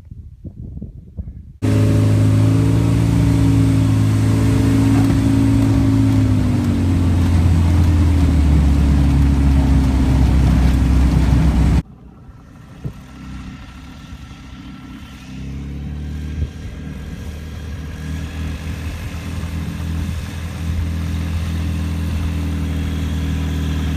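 Just Aircraft Highlander's engine and propeller. A loud stretch starts suddenly, and its pitch drops partway through as the power comes back. After an abrupt cut it runs at low taxi power, growing gradually louder as the plane rolls toward the microphone.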